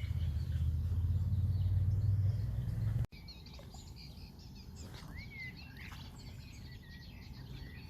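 A loud steady low rumble for about three seconds that cuts off suddenly, followed by birds chirping and twittering over quiet outdoor background noise.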